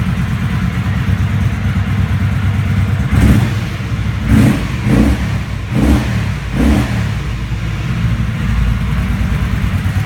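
Kawasaki Vulcan 750 V-twin on its stock exhaust idling, blipped five times in quick succession a few seconds in, then settling back to a steady idle.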